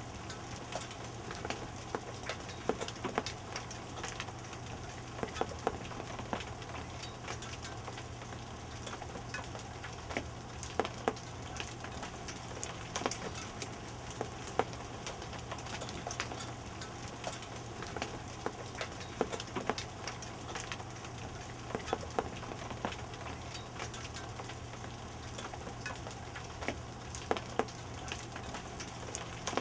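Small hail pellets falling and striking a patio deck: a steady hiss with many irregular sharp ticks and clicks.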